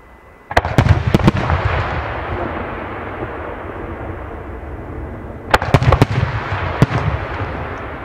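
Aerial fireworks shells bursting: a quick run of sharp bangs about half a second in, then a fading rumble. A second run of bangs comes about two-thirds of the way through, with one more bang just after.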